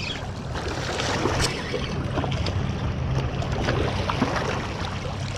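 Wind buffeting the microphone, with small lake waves lapping and splashing against shoreline rocks.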